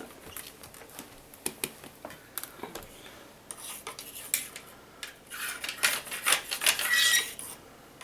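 A thin homemade wire tool scraping and tapping inside the plastic neck and suction pipe of a clogged Shark Rocket Professional vacuum, being worked in to push out the clog. Scattered clicks and taps at first, then a busier scratching rattle in the second half.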